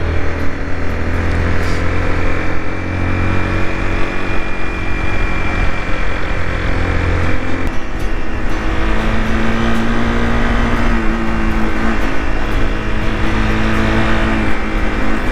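Honda CBR 250R's single-cylinder engine running steadily while the motorcycle is ridden, with the engine note changing about eight seconds in.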